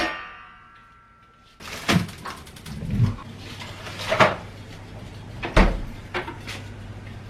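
Kitchen handling sounds: a sharp clink at the start that rings on for about a second and a half, then a low hum comes on and several cupboard-door and object knocks follow, about one a second.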